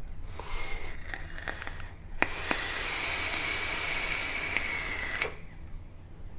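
A long draw on an iJoy Tornado 150 dual-coil rebuildable tank atomizer firing at about 70 watts: a steady hiss of air rushing through its airflow slots with a faint whistle. It grows louder after a click about two seconds in and cuts off abruptly about five seconds in.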